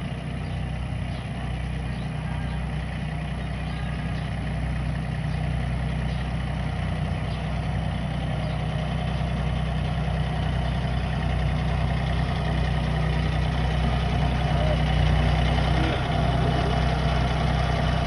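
Compact tractor with a front loader, its engine running steadily at low speed and growing louder as the tractor drives closer.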